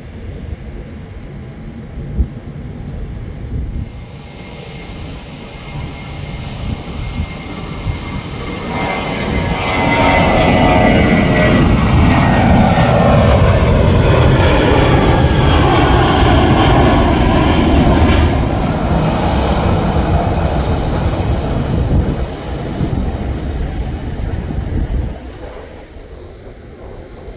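Airbus A320-family twin-jet airliner taking off: the engine noise builds on the takeoff roll, swells to its loudest for several seconds as the jet passes and climbs away, with a whine falling in pitch as it goes by, then fades and drops off sharply near the end.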